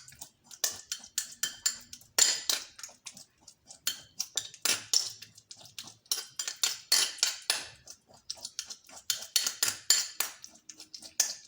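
A utensil scraping and clicking against a small dish in quick, irregular strokes with short pauses, mashing and stirring soft processed cheese into olive oil.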